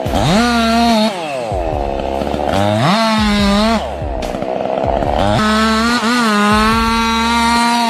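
Chainsaw revving up to full throttle and dropping back toward idle three times, each high run lasting about a second.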